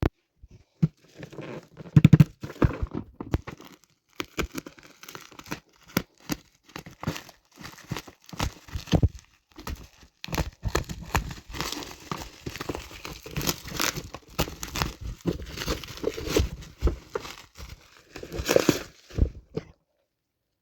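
Packaging being crinkled and torn open by hand to unbox a toy: irregular rustling and crackling with short pauses, stopping shortly before the end.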